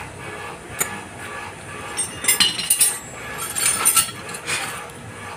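Hand tools and metal parts clinking against each other during work on a scooter's opened CVT, with a run of short, sharp clinks about two to four seconds in.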